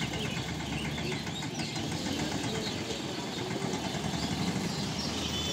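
Engines of slow-moving road traffic, a tractor, a van and a small truck, running at low speed as they cross the tracks: a steady low rumble.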